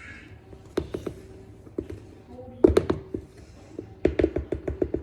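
A run of sharp taps and knocks from things being handled and set down, with a quick cluster of about eight near the end.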